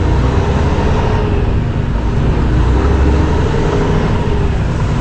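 Semi truck's diesel engine and road noise heard inside the cab while driving, a steady low drone.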